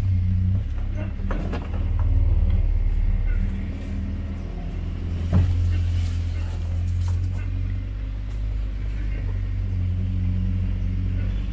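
A motor vehicle's engine running at a steady low pitch while driving, with a few short knocks and rattles over it; the sharpest knock comes about five seconds in.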